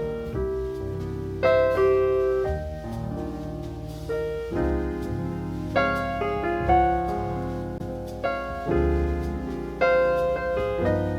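Jazz piano recording: chords and a melody over bass notes, with new chords struck every second or so.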